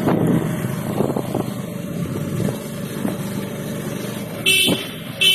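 Motorcycle engine running steadily while riding, with wind buffeting the phone microphone. Two short, sharp, high-pitched sounds come near the end.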